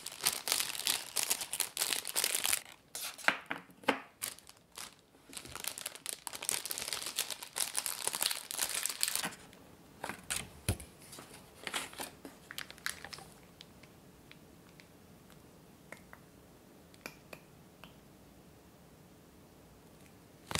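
Plastic bags of ready-made chocolate truffle shells crinkling as they are handled and opened, loud and continuous for about nine seconds. This is followed by a few light plastic clicks as the shells on their plastic trays are handled.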